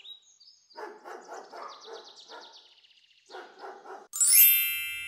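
Sound-effect dogs barking and yapping in two quick runs, with a bird trilling above them. About four seconds in, a bright ringing ding is the loudest sound and fades out slowly.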